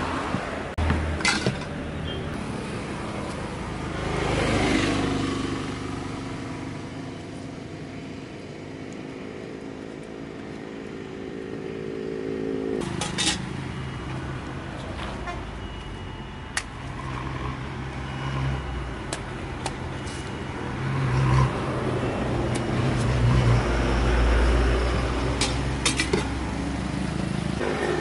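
Road traffic going by: vehicle engines swelling and fading, one holding a steady hum for several seconds, with a few short sharp knocks.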